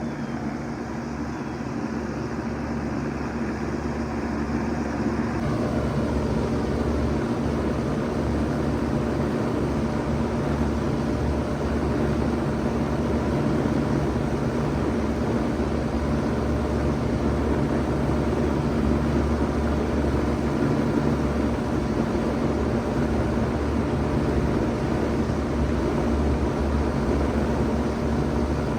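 1991 Bard Wall-Aire 3-ton wall-hung heat pump running in heat mode: a steady compressor hum under the rush of its fans, swelling a little over the first few seconds and then holding even.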